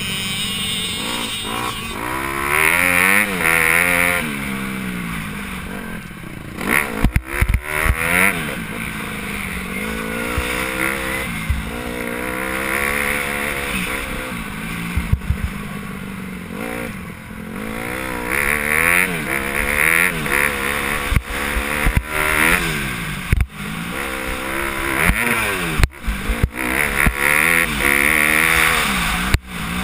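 Motocross dirt bike engine revving hard and backing off again and again as the rider accelerates, shifts and slows for turns around a dirt track. A few sharp knocks break in where the bike hits bumps.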